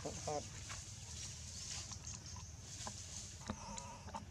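A few short animal calls, one just after the start and a fainter wavering one near the end, with scattered soft clicks over a steady low outdoor background.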